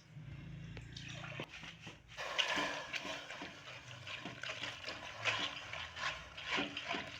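A glass of water poured into soaked tamarind. From about two seconds in come irregular wet squelching and sloshing as the tamarind is worked by hand in the water to free its pulp.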